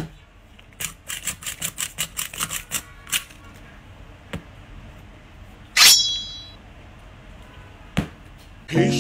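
A quick run of sharp clicks, about five a second for two seconds, then a few single clicks. Near the middle there is a brief, bright high-pitched ringing sound.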